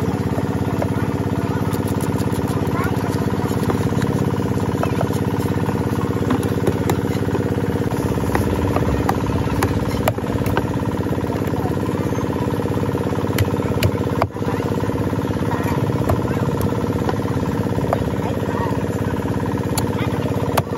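A small engine runs steadily throughout with an even hum. Over it come scattered sharp clicks and scrapes from a knife scaling and then chopping a large fish on a wooden block.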